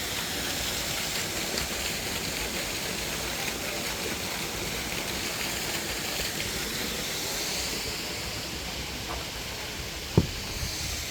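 Steady rushing noise, with a single sharp knock about ten seconds in.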